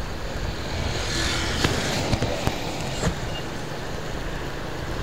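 Traffic noise heard from a moving motorcycle: steady engine and wind rush, with a passing vehicle swelling by about a second in.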